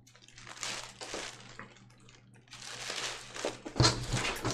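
Thin plastic shopping bag rustling and crinkling as a hand rummages inside it, in uneven bursts, with a few sharper knocks near the end.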